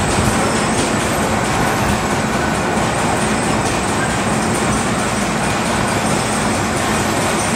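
Carousel running: a steady mechanical rumble and hiss as it turns.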